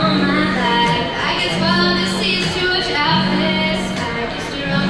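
A young woman singing, accompanying herself on acoustic guitar.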